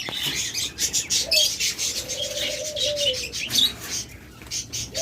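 Budgerigars in cages chattering with quick high chirps, while a dove gives a long low coo about a second in that drops slightly at its end, and starts another just at the end.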